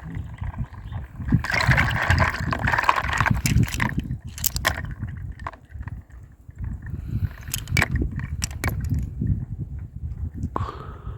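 Water sloshing and gurgling inside a handheld water ring toss toy as its rings are pushed around, with a burst of rushing water about a second and a half in and a scatter of sharp plastic clicks.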